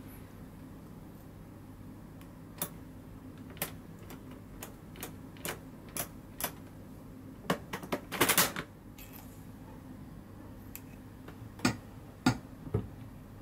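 Clicks of a drawer's four-digit combination lock as its number wheels are turned with a finger, about one or two a second. A louder quick run of clicks comes about eight seconds in, and three more clicks near the end.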